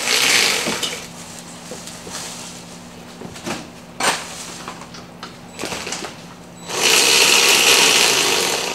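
Impact wrench running in two bursts, a short one at the start and a longer one of about two seconds near the end, with a few sharp metal clicks in between, as lug nuts are run on a wheel.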